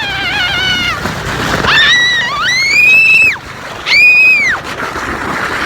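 High-pitched squealing shrieks from a girl sledding: a wavering cry fades out in the first second, then three arching squeals come about two, three and four seconds in, over a steady hiss.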